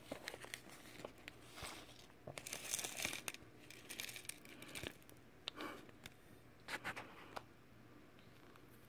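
Faint crinkling and rustling of a small clear plastic zip bag being handled and shaken out, with shredded paper and plastic game pieces spilling onto a cloth, coming in short scattered bouts with a few light clicks.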